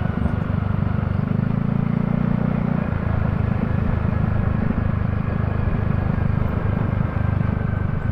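A vehicle travelling along a road: its engine and road noise make a steady low rumble, with the engine note standing out more clearly for a couple of seconds about a second in.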